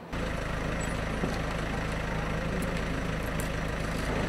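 An engine running steadily with a low, even hum. It starts abruptly just after the beginning.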